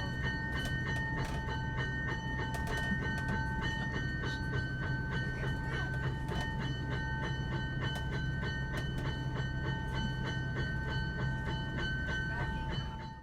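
A freight train running alongside, heard from inside a moving motorhome: a steady low rumble with scattered clicks and a few faint, thin steady whines above it. It cuts off abruptly at the very end.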